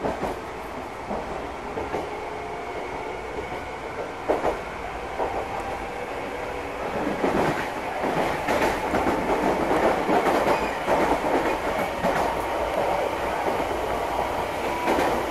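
Meitetsu electric commuter train running, heard from inside the passenger car: a steady rumble with wheels clicking over rail joints, growing louder about seven seconds in.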